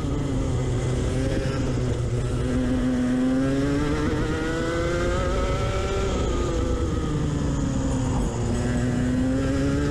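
Two-stroke kart engine (IAME X30) running at race pace, its pitch falling as the kart slows for a corner and climbing again under acceleration: lowest about two and a half seconds in and again about eight and a half seconds in.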